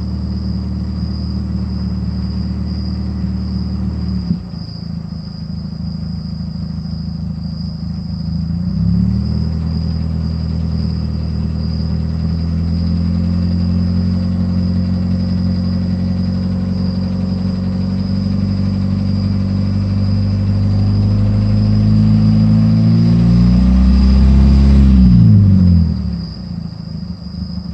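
Chrysler PT Cruiser four-cylinder engine at idle, with a sudden change in its note about four seconds in. It revs up about nine seconds in, is held there and creeps higher, then drops back to idle near the end. This is a high-mileage engine whose owner wonders whether the sound is piston slap.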